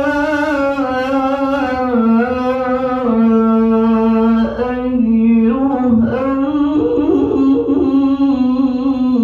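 A man singing solo into a handheld microphone: a slow chant in long held notes with wavering, ornamented turns.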